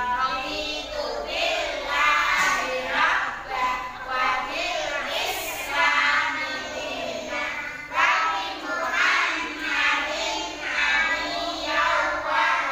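A group of young kindergarten children singing a song together, in phrases of about a second.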